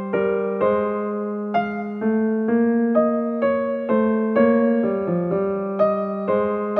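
Background piano music: a steady run of struck notes, about two a second, over a held low note.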